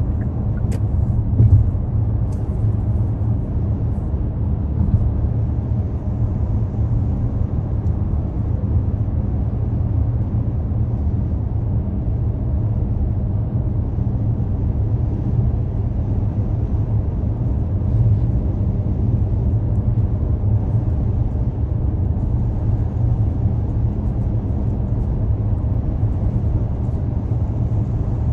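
Steady low rumble of a car driving: engine and tyre noise at an even pace, with a few faint clicks a second or two in.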